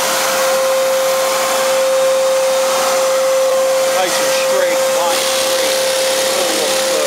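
Power sander running steadily on a fiberglass composite deck, smoothing the transition where the flange was trimmed off. It makes a constant high whine over a hiss.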